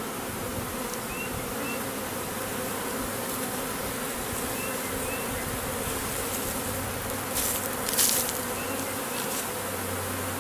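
Swarm of honeybees buzzing steadily as they move into a hive box, some fanning their wings at the entrance. A few faint chirps and a brief rustle about eight seconds in.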